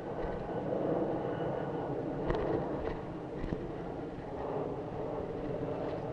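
Steady outdoor rushing noise with a few short, sharp cracks spread through it: distant airsoft gunfire.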